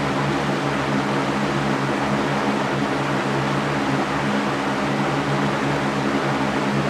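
Box fan running on high speed: a steady rush of moving air over a low, even motor and blade hum, with no change.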